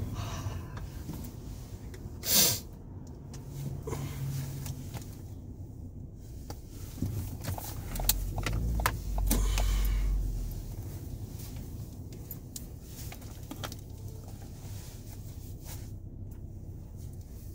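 Road and engine noise heard inside a moving car's cabin, a steady low rumble. About two seconds in there is a short, loud burst of noise, and around the middle a deep rumble swells for a couple of seconds before the sound settles lower and steadier.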